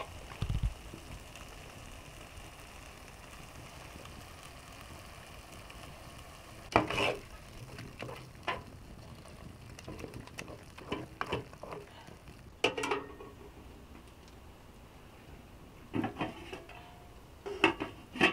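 A metal utensil knocking and scraping against a cooking pot in scattered strokes, the loudest about seven seconds in, over a steady frying sizzle.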